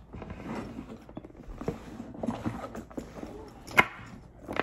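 Handling noise from items being moved into a leather handbag: rustling and light knocks, with one sharp click a little before the end.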